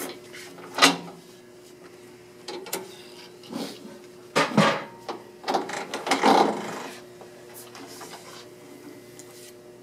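The metal tail guide on the delivery of a Multi 1450 offset press is pushed back and set by hand: a sharp click about a second in, then a few knocks and scraping rubs of metal around the middle, over a faint steady hum.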